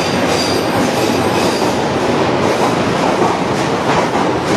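London Underground Northern line train (1995 Stock) pulling out of the platform: a loud, steady rumble of wheels on the rails, with faint clicks and a thin high wheel squeal early on.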